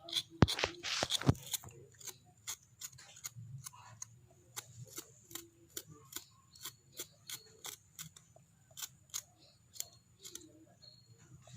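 Kencur (aromatic ginger) rhizome being scraped to remove its skin: a run of short, sharp scratching strokes, about two or three a second, louder and quicker for the first second or so.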